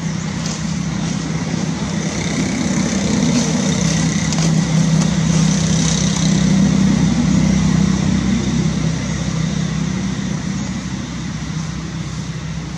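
Motor vehicle engine running nearby, a low steady hum that swells to its loudest about halfway through and then fades, as a vehicle passing by.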